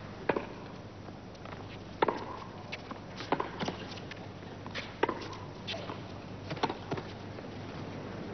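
Tennis rally: the ball is struck back and forth with rackets, each hit a sharp pop, roughly every one and a half seconds, with a few bounces between the strikes.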